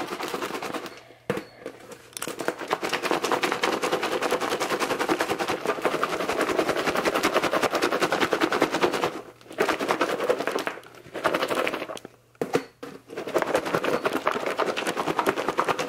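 A plastic food container of chopped vegetables and blackberries being shaken hard: a fast run of rattles and knocks of the food against the container, in several bouts with short pauses between them.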